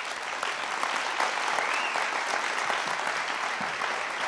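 Audience applauding, a steady burst of clapping at the end of a spoken performance.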